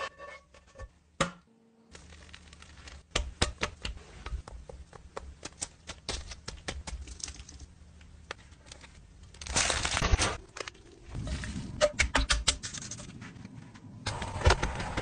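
Close-up food-preparation sounds: a run of small crisp clicks, taps and rustles as a sandwich is assembled on a toasted bagel in a frying pan, with a short noisy burst about ten seconds in. Near the end, beaten egg sizzles in a hot pan.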